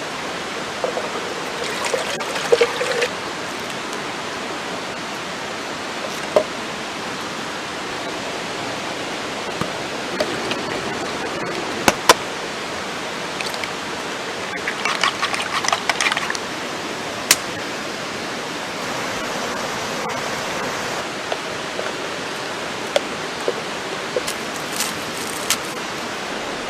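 Camp cooking over a wood fire: a steady rushing hiss with scattered small crackles and clinks, and a few single sharp snaps.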